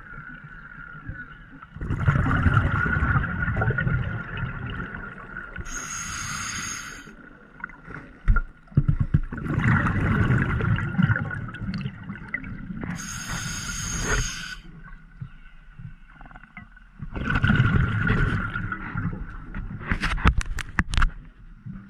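Scuba diver breathing through a regulator underwater: exhaled bubbles rumble and gurgle out three times, with a short hissing inhalation through the regulator between them. A few sharp clicks come near the end.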